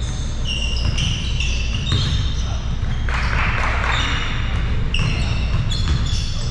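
Basketball game on a hardwood gym floor: sneakers squeak in many short, high chirps while the ball bounces. About three seconds in there is a brief rush of noise, all over a steady low rumble in the hall.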